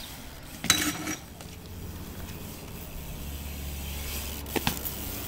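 BMX bike landing from a hop onto pavement: one sharp metallic clank with a short rattle under a second in. Later a low rumble and two light clicks of the bike's metal parts.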